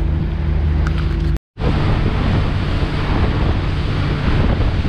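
Motorboat under way: a steady engine drone for the first second and a half, then, after a short cut, wind buffeting the microphone and water rushing past the hull over the engine.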